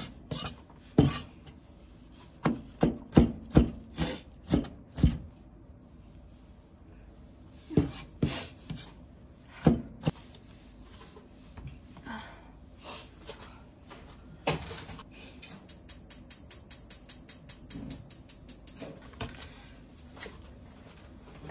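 Knife work on a wooden cutting board: scattered knocks and scraping strokes, then a quick even run of light chopping taps, about seven a second, over the last several seconds.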